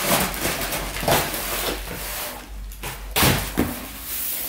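Cardboard rustling and scraping as a shoebox is pulled out of a cardboard shipping box, with several dull knocks of box against box, the loudest about three seconds in.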